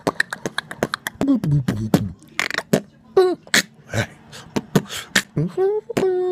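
A man beatboxing: a quick run of sharp mouth clicks and percussive hits, mixed with short hummed notes that slide up and down in pitch.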